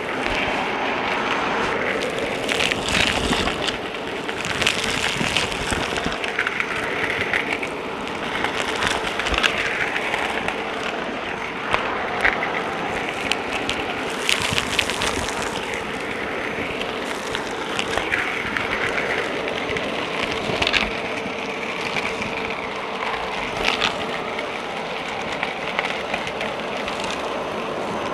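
Dyson Light Ball vacuum cleaner running steadily with a constant motor hum, with frequent crackles and rattles of crunchy debris being sucked up.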